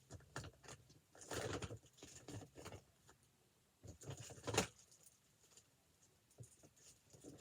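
Objects being handled and rummaged through: scattered light clicks and taps, with two short bursts of rustling about a second in and again near four seconds.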